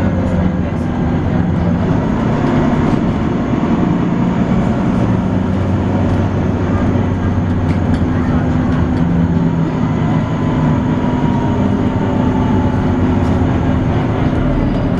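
Volvo B9TL double-decker bus engine running under way, with the steady vacuum-cleaner-like whine that enthusiasts call 'hoovering'. A faint higher whine rises and falls about nine to twelve seconds in.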